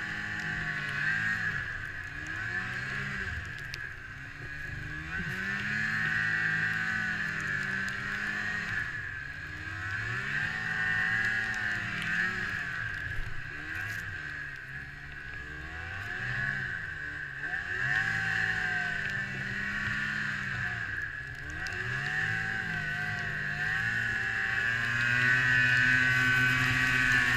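Ski-Doo MXZ 600 snowmobile engine running under way, its pitch rising and falling every couple of seconds as the throttle is worked through the turns, then held higher near the end.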